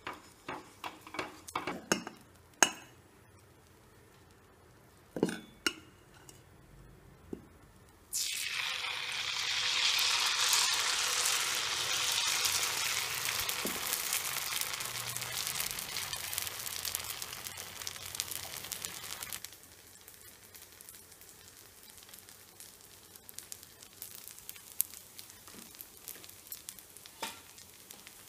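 Rice batter for kallappam hitting a hot black griddle pan: a loud sizzle starts abruptly about eight seconds in and dies away over some ten seconds. Before it come a few light clicks and taps as the pan is oiled with a brush, and near the end a couple of faint clinks.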